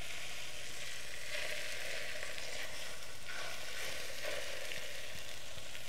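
Chaffle batter of egg and cheese sizzling steadily on the hot plates of an electric waffle maker as it is poured and spread in.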